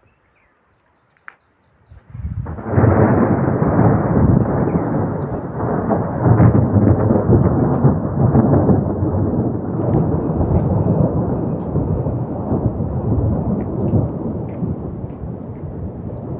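Thunder: a long rolling rumble that breaks in suddenly about two seconds in and slowly eases off.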